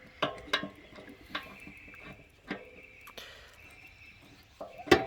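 A crescent wrench and screwdriver being fitted onto the anode rod plug of an RV water heater, giving a few scattered light clicks and taps of metal on metal.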